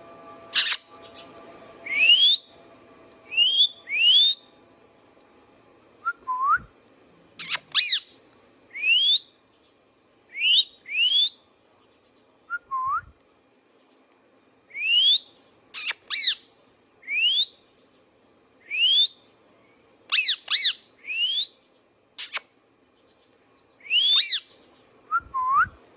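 Indian ringneck parakeet calling over and over: short rising whistles, about one every second or two, with a few sharp shrieks and three lower rising calls mixed in.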